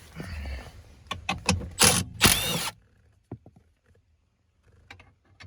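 Handheld power tool driving out a bolt in two short bursts about two seconds in, its motor whining up and down, with small clicks of tool and bolt handling around it.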